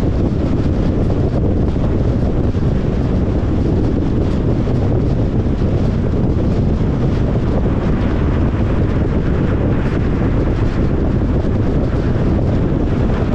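Tesla Model Y Long Range electric car driving: a steady, loud low rush of tyre and wind noise.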